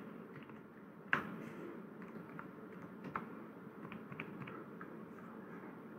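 Typing on a computer keyboard: a scattered run of light key clicks, the loudest about a second in.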